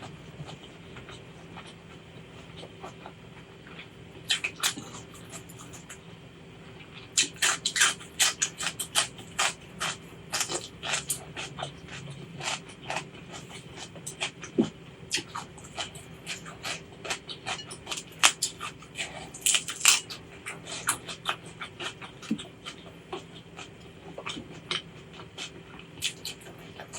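Close-miked eating sounds: a person chewing with many sharp, irregular, crisp clicks and smacks. They are sparse at first and become dense about seven seconds in.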